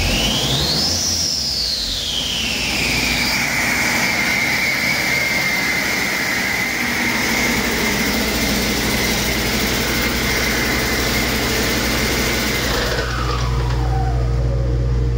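2012 Cummins ISX15 inline-six turbo diesel running on a test stand, with a high turbocharger whine over its low rumble. The whine climbs sharply and falls back about a second in as the engine is revved, then holds steady at idle, and near the end it slides down and fades while the low rumble carries on.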